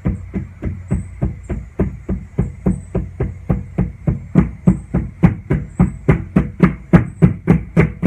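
Homemade taiko-style drum, a tire with a head of stretched shipping tape, struck with two sticks in a steady, even beat of about three strokes a second, each a low thud. The strokes grow louder about halfway through.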